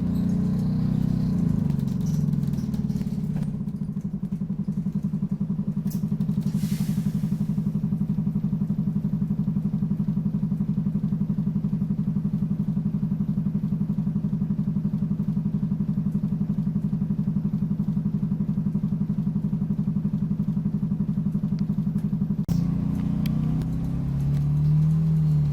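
Optare Solo bus's diesel engine running at a steady low note with an even throb, heard from on board. A short hiss comes about seven seconds in, and near the end the engine note changes and rises as the bus picks up.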